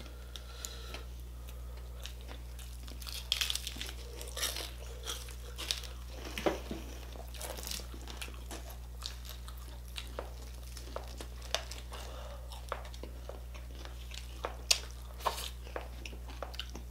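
Close-miked eating of crispy pata, deep-fried pork knuckle: crunching and chewing, with irregular sharp crackles as the fried skin and meat are torn and bitten by hand. A steady low hum runs underneath.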